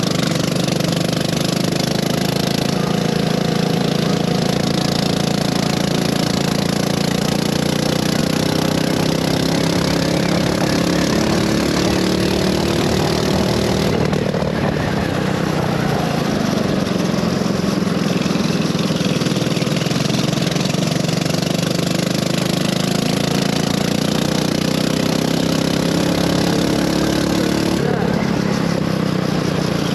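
Go-kart engine running continuously on track. Its pitch sinks slowly for many seconds, then jumps back up sharply twice, about halfway through and near the end, over a steady hiss.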